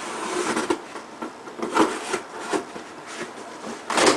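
Cardboard shipping box being opened and handled: rustling and scraping of cardboard with a series of short knocks, the loudest near the end.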